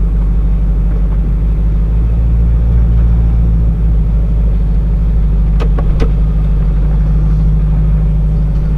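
Jeep engine running at low revs as the Jeep crawls at walking pace, a steady low rumble heard from inside the cab. Two short clicks come a little over halfway through.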